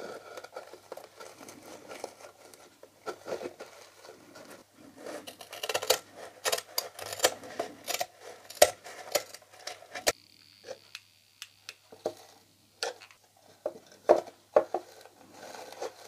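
Scissors snipping through a thick coco coir fibre liner in irregular cuts, with the coarse fibres rustling and scratching as the pieces are handled and pressed onto the roof.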